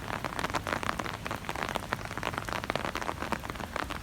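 Rain falling during a thunderstorm, a dense patter of separate drops striking a surface.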